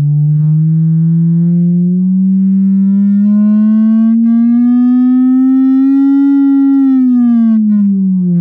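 Bose Videowave II subwoofer's six miniature woofers playing a sine-wave sweep from a frequency generator: a loud, distorted tone that rises steadily in pitch, peaks about six seconds in, then falls again. The distortion is the phone microphone being overloaded.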